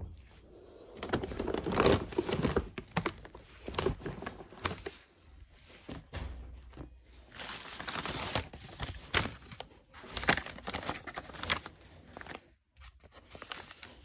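Hands rummaging through plastic shopping bags of school books and papers: the bags crinkling and rustling, with irregular knocks and clicks as books and paper are moved.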